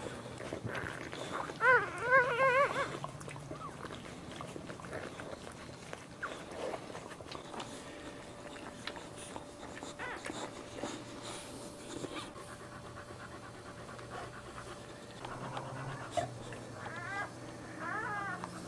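A dog in labour panting, with loud, high, wavering whines about two seconds in and shorter ones near the end.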